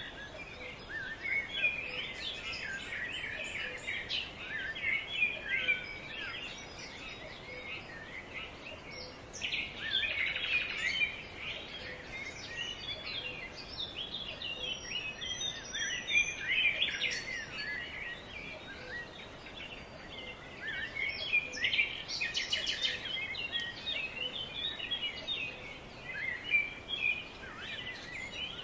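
Small birds chirping and twittering in a busy chorus: many short high chirps tumbling over one another, thicker in some spells and sparser in others.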